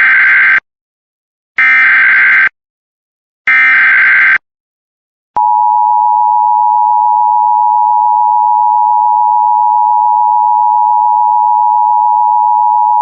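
Emergency Alert System activation: three roughly one-second bursts of SAME digital header data, about two seconds apart, then the EAS attention signal, a steady two-tone beep at 853 and 960 Hz held for about eight seconds.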